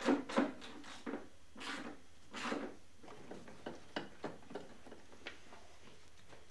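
A hand tool undoing the nuts and screws on a car's heater blower housing: irregular short clicks and scrapes of metal on metal and plastic, a few spread over the seconds.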